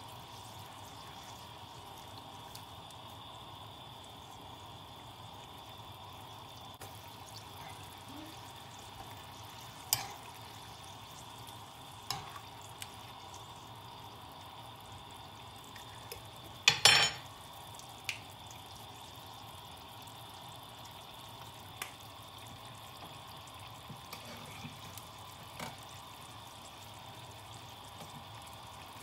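A spoon and spatula stirring curry in a non-stick frying pan, with a handful of sharp clinks of utensil against pan spread through. The loudest is a quick cluster of clinks a little past halfway, all over a steady low hiss.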